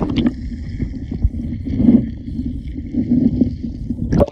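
Muffled, low rumbling water noise from a phone microphone held underwater, swelling twice with the water's movement, over a faint steady high whine. A splash as it goes under, and another sharp splash about four seconds in.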